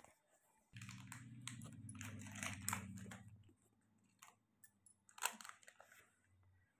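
Faint crinkling and rustling of a clear plastic wrapper handled together with a lump of modelling dough, over a low hum for the first few seconds. A single short click comes about five seconds in.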